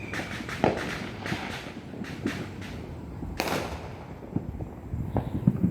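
Fireworks and firecrackers going off: irregular bangs and pops, with one louder bang about three and a half seconds in and a quick run of pops near the end.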